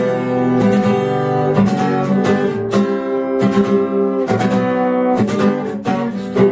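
Acoustic guitar strumming chords in a steady rhythm, as an instrumental intro with no singing.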